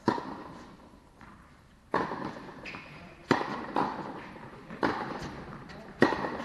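Tennis rally on an indoor court: about six sharp pops of racket strings hitting the ball and the ball bouncing, each echoing in the big hall. The loudest hits come at the start and near the end.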